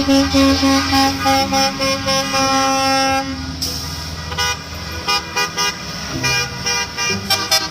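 A bus horn honking in a quick series of toots. It holds one note for about the first three seconds, then plays shorter toots that change pitch.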